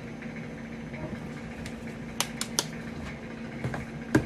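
Hands pressing a plastic bath bomb mold packed with powder, with three quick sharp plastic clicks about two seconds in and a knock near the end as the plastic tray is tipped over the bowl.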